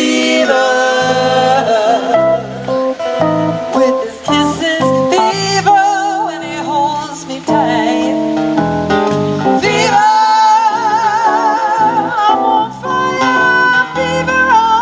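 Live band music: plucked guitar over separate low bass notes, with a voice holding wavering notes.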